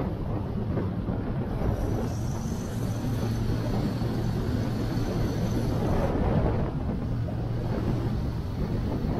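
Motorcycle engine running at a steady speed, a constant low drone, with wind rushing over the microphone.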